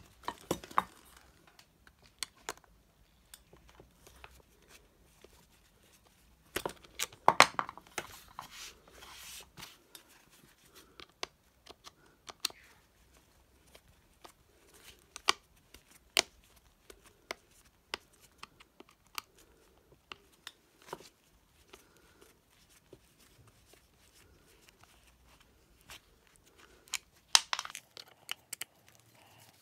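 Scattered clicks, scrapes and rustles of a white plastic lamp base being handled and turned over by a gloved hand, with a screwdriver knocking against it, louder bursts of handling about seven seconds in and near the end.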